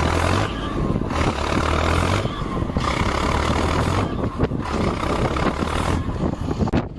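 Heavy diesel engine of a crawler tractor towing a snow-stuck truck on a cable, a low steady drone that swells and eases, with wind rushing on the microphone. The audio cuts off abruptly just before the end.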